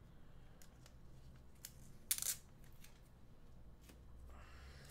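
Tape being peeled off a plastic comic book bag, with one short, louder crackly rip about two seconds in and a few faint plastic rustles and clicks around it.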